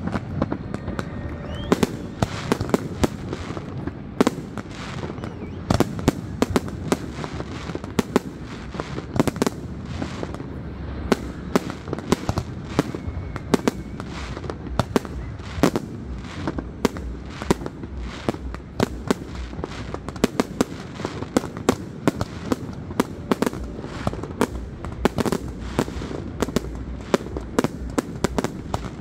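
Fireworks display: a rapid, continuous string of sharp bangs from bursting aerial shells, several a second, over a steady low rumble.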